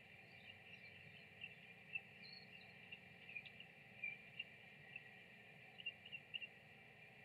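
Faint, scattered short chirps of small birds over a steady high insect hum.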